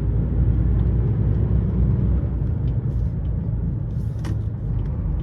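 Steady low rumble of a lorry's diesel engine and road noise, heard from inside the cab while driving.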